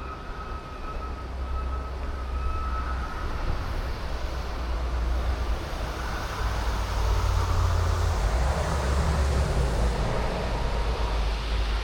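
City street traffic: a steady low rumble with a faint whine early on, then the sound of passing vehicles swelling about halfway through and staying louder.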